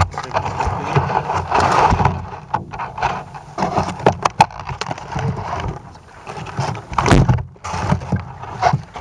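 Handling noise from a Sony Bloggie camera with a panoramic lens attachment being gripped and moved by hand: rubbing and scraping on the casing with irregular knocks and bumps, the sharpest of them about seven seconds in.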